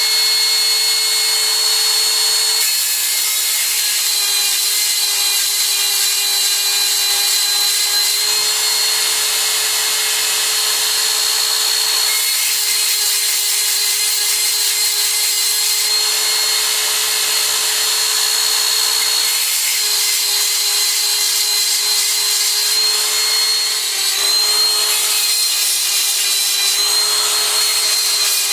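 Handheld electric rotary tool with a chainsaw-sharpening attachment running at high speed, grinding the cutters of a chainsaw chain one after another: a steady high whine over a grinding hiss, dipping briefly in pitch near the end.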